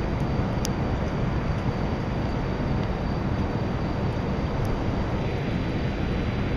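Steady wind rushing over the microphone, a heavy, even low rumble, with two faint ticks, one under a second in and another about four seconds later.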